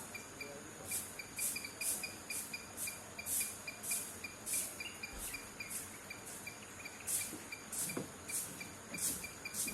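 Insects calling: a steady high chirp repeating about three to four times a second, with louder hissing buzzes coming in irregularly over it.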